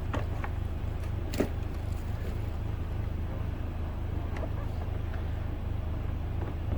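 Steady low rumble of an idling vehicle engine, with a few short sharp clicks over it, the sharpest about a second and a half in.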